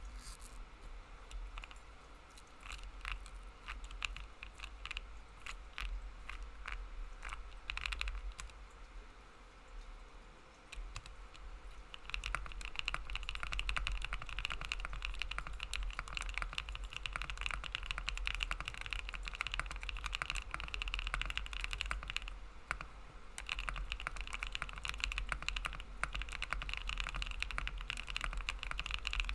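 A 60% custom mechanical keyboard with Gateron Creamy Oil linear switches, 60A O-rings and a PLA half plate, with no case foam. It gives scattered clicks and knocks at first, then from about twelve seconds in it is typed on quickly and continuously, with a brief pause partway through. The typing sounds solid with a slight hollowness, which the builder puts down to the missing foam.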